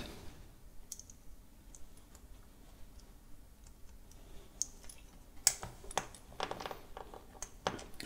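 Faint small clicks and handling noises as a cable is pushed into a small plastic micro-USB plug housing, with a few sharper clicks in the second half.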